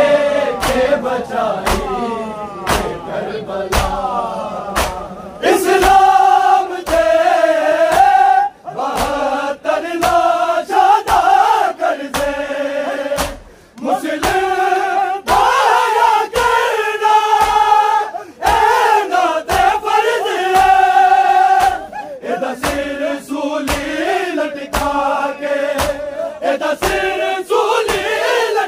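A crowd of male mourners chanting a Punjabi noha together, with long held notes, over a steady beat of open-handed chest-beating (matam) that keeps time.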